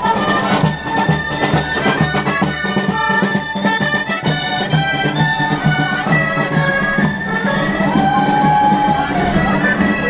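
Music: wind instruments playing a tune over steady drum beats.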